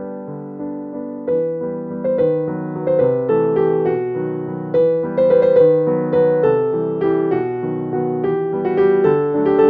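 Background music: a gentle piano tune, its notes and chords struck one after another and fading.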